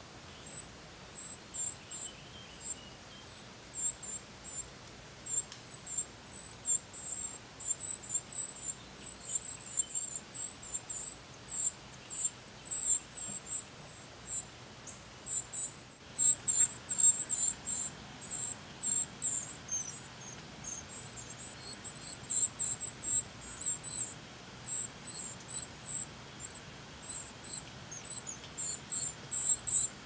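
Northern cardinal nestlings begging for food: rapid, very high-pitched peeps in irregular runs. They grow louder about halfway through as the female comes to the nest.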